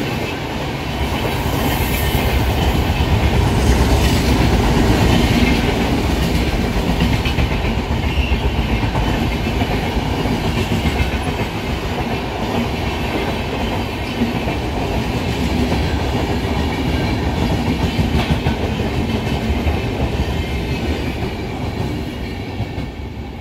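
Passenger coaches of an express train passing close by at speed: a steady rumble of wheels on rail with a running clatter of knocks over the rail joints. It eases off near the end as the last coach goes by.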